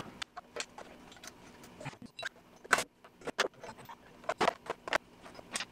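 Irregular metallic clinks, rattles and knocks of hardware and hand tools as a plastic poly liner plate is fitted onto a semi truck's steel fifth wheel, over a faint steady hum.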